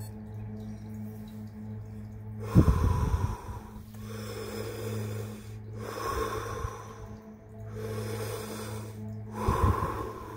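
A man taking deep breaths in and out through the mouth, Wim Hof method breathing, each breath a rushing of air close to the microphone, the strongest about two and a half seconds in and near the end. A steady low drone of background music runs beneath.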